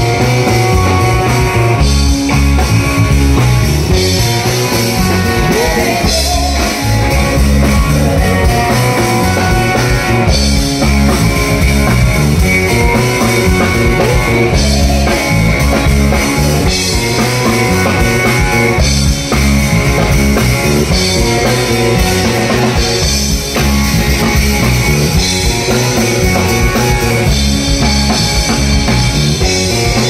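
Live rock band playing loudly: electric guitars, bass guitar and drum kit.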